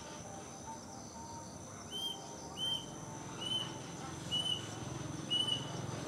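Plaintive cuckoo (kedasih) singing: a series of short whistled notes at much the same pitch, about one every 0.8 s, starting about two seconds in.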